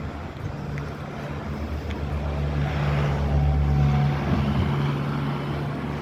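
A motor vehicle driving past, its low engine hum swelling to its loudest a little past halfway and then fading.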